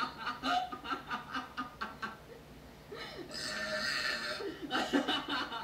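People laughing in quick bursts, with a hissing noise about three seconds in that lasts over a second, then more laughter near the end.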